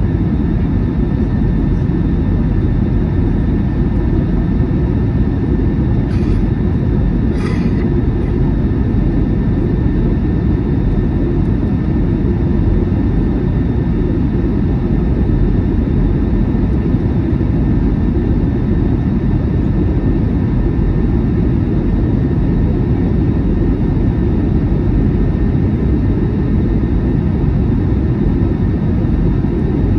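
Steady low rumble of cabin noise inside an Airbus A321 airliner on approach: engine and airflow noise through the fuselage, with a faint steady whine above it. Two faint ticks sound in quick succession about a fifth of the way in.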